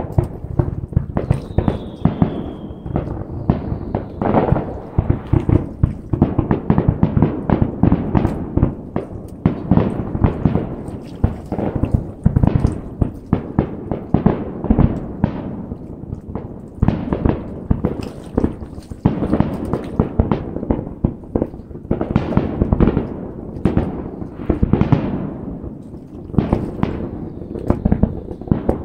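Fireworks display: a dense, unbroken barrage of shell bursts and crackle, many bangs a second.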